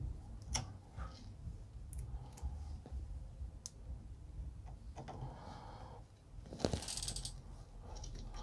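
Scattered small metal clicks and light rustling from an Allen key and small screws being handled and turned in a 3D printer's linear-rail carriage, with one louder clatter about seven seconds in.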